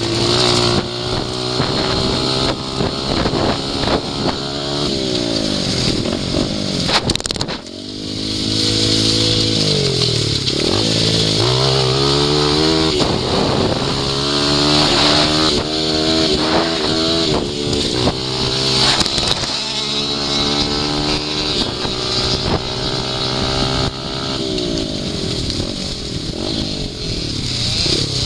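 Dirt bike engine under way, its revs climbing and falling back again and again. The revs drop away sharply about seven seconds in before climbing again.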